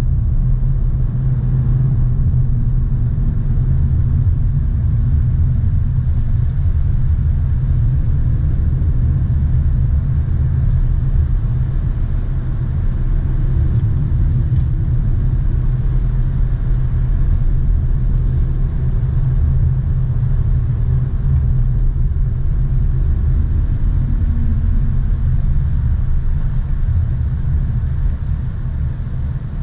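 Steady low rumble of a car's engine and tyres on the road, heard from inside the moving car's cabin, easing slightly near the end.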